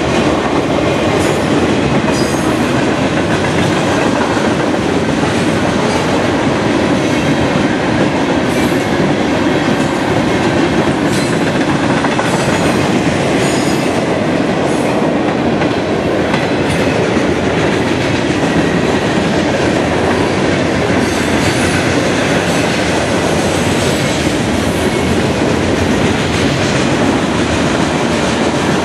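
A long freight train of boxcars, lumber-loaded centerbeam flatcars and tank cars rolling steadily past close by. Its wheels give a continuous loud rumble and clatter over the rails, with scattered sharp clicks.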